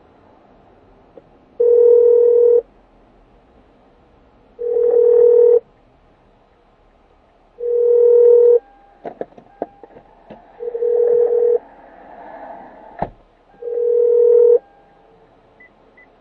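Telephone ringback tone of an outgoing call ringing unanswered: a steady mid-pitched beep about a second long, repeating every three seconds, five times. A few clicks and light rustling fall between the later beeps.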